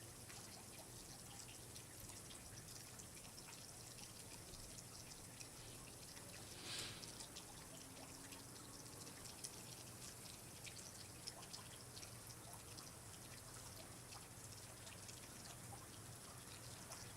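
Faint water dripping: scattered small drips over a low steady hiss, with one brief louder rush about seven seconds in.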